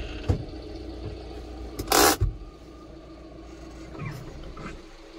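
Tata Intra V30's 1.5-litre diesel engine idling with 172,000 km on it, a steady low drone heard from inside the cab. A short, loud rush of noise cuts in about two seconds in, and the engine sound drops away near the end.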